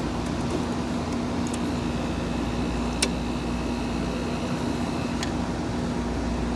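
1986 Friedrich Quietmaster 19,000 BTU window air conditioner running on cool, its compressor and blower fan making a steady hum. A sharp click comes about three seconds in and a lighter one a couple of seconds later.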